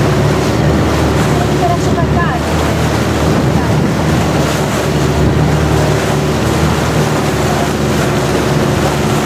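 Long-tail boat's engine running steadily while under way, with wind on the microphone and water rushing past the hull.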